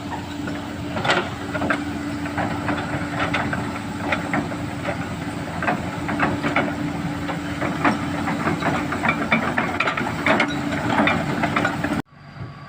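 Komatsu excavator running at work: a steady engine and hydraulic hum with many irregular clanks and clicks from the machine and the loading. It cuts off abruptly near the end.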